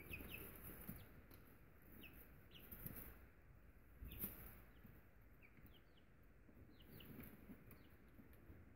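Faint, scattered peeps from Buff Orpington chicks nearly three weeks old: short, high chirps that drop in pitch, heard singly and in quick pairs. Soft rustling runs under them, with one sharp knock about four seconds in.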